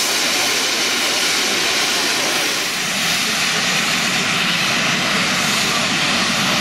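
GWR Castle Class 4-6-0 steam locomotive 5043 standing and blowing off steam at its safety valves: a loud, steady hiss, the sign of the boiler at full working pressure.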